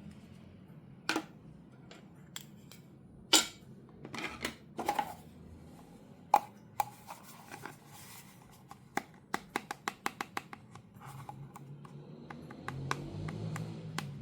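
Toy packaging being handled and opened: scattered sharp taps and clicks of plastic and cardboard, with some rustling, and a quick run of about eight clicks about two thirds of the way through.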